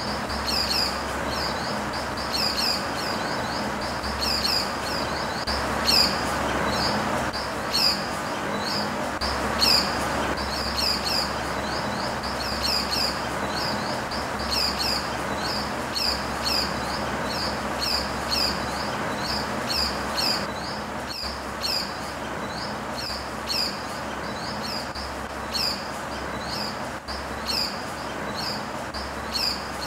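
A bird chirping: short, high, downward-flicking notes in little clusters, repeated over and over about once a second, over a steady background hiss.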